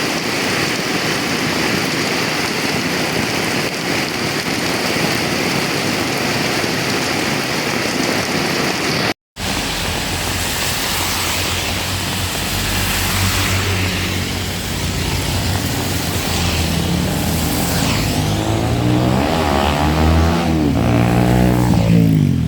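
Heavy rain hissing steadily. After a brief cut about nine seconds in, a motor vehicle's engine runs close by under the rain, its low hum shifting in pitch and growing louder toward the end as it passes.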